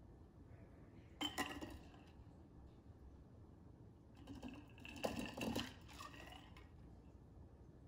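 Glass wine bottle clinking against a metal tumbler of ice-cold water as its scored neck is dunked in, with a short burst of clinks about a second in and a longer, louder clinking and sloshing burst around five seconds in. The dunk is the thermal-shock step meant to crack the bottle along its score line.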